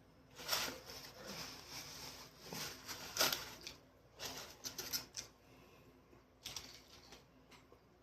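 Close-up eating sounds: crunching and chewing in irregular crackly bursts, the loudest a little past three seconds in.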